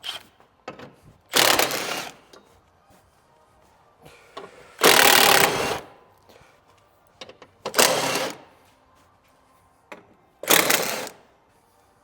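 Impact gun running in four short bursts, a few seconds apart, spinning out 10 mm bolts, with small clicks and knocks between the bursts.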